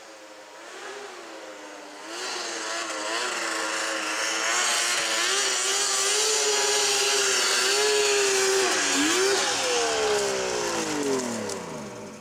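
An engine revving at high speed, its pitch wavering up and down, growing louder about two seconds in, then falling steeply over the last two seconds as it fades.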